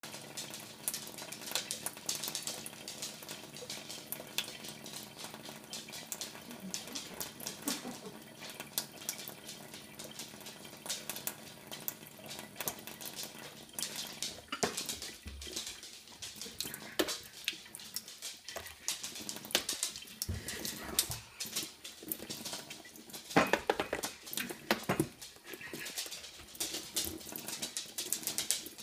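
A thin stream from a kitchen mixer tap trickles and splashes into a sink. A cat drinks from the stream and paws at it, making many small irregular splashes and lapping clicks, which grow busier in the second half.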